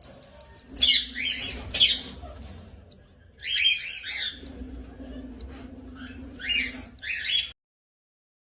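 Lovebirds giving short, shrill chirps and squawks in several bursts, the sound cutting off abruptly about seven and a half seconds in.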